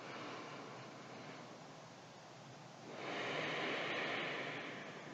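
A slow breath, heard as a soft rush of air about three seconds in that swells and fades over about two seconds, over a faint steady hiss.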